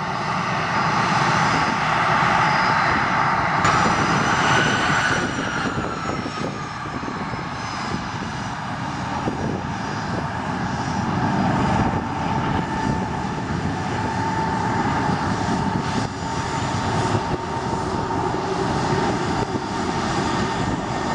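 Twin rear-mounted turbofan engines of a Canadair Challenger business jet at taxi power as it rolls past: a steady rushing hiss with a high whine running through it. About four seconds in, a set of high whine tones glides slightly down in pitch, and the sound is loudest in the first few seconds.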